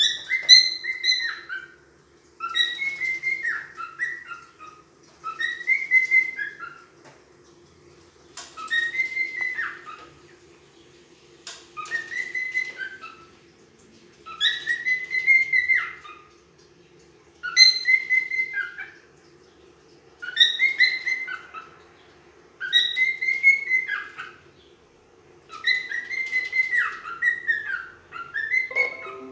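Wild-type grey cockatiel whistling the same short phrase over and over, about every three seconds. Each phrase holds a clear note, then drops and warbles at its end.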